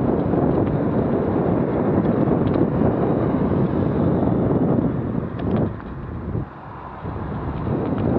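Wind buffeting the microphone while on the move, a steady noisy rush that drops off for a second or two past the middle and then builds again.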